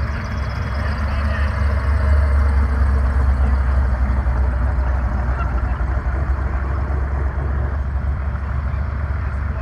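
Engine of a supercharged Pontiac Firebird rumbling low as the car drives past and pulls away, loudest a couple of seconds in.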